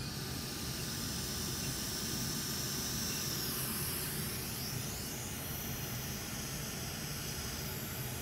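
Steady airy hiss, with a brief dip and sweep in its upper part about three to four seconds in.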